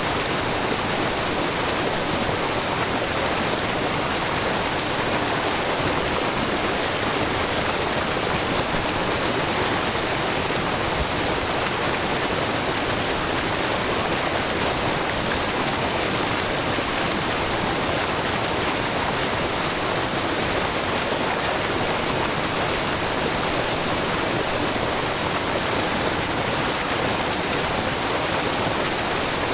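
Shiraito Falls, groundwater spilling in many thin streams down a low, wide rock face, making a steady, even rush of falling water.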